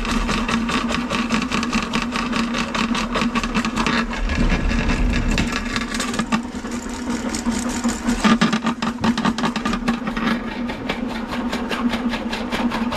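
Drain-cleaning machine running with its coiled auger cable spinning in the sewer pipe: a steady motor hum under a fast rattle of the cable. It is clearing a line crusted with soap scum and grease.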